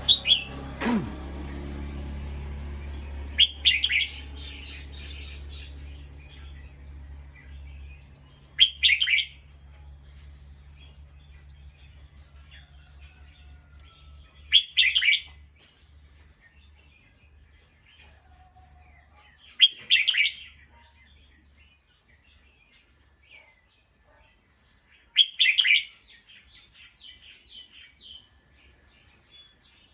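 Bulbul singing in short, loud bursts: six brief phrases about five to six seconds apart, with quiet between them.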